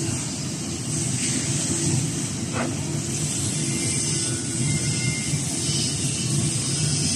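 Rizo 6-axis CNC deburring machine running, its spindle and deburring tool working along the edges of a metal casting: a steady mechanical hum with a high hiss.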